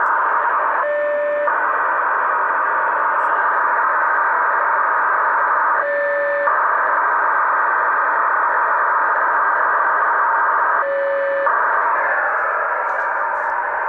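Icom IC-821 satellite transceiver's receiver audio in sideband mode, tuned to the Nayif-1 downlink: a steady, narrow-band hiss of static. Three short tone blips cut into the hiss, about five seconds apart.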